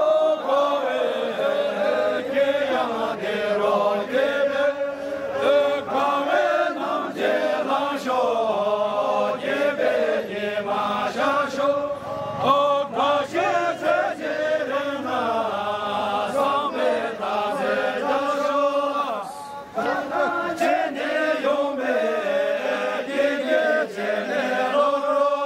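A group of men singing a traditional Syabru song together in chant-like unison, with a brief pause about three quarters through.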